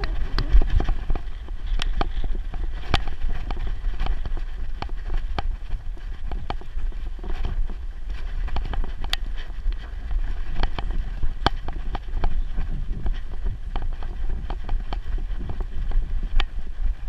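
Handling noise from a GoPro strapped to a dog's back as she moves: a steady low rumble with irregular sharp clicks and knocks from the jostling camera mount, and some wind on the microphone.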